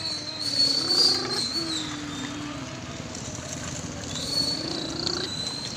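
A child's voice making long, slowly wavering humming sounds in imitation of a working truck engine.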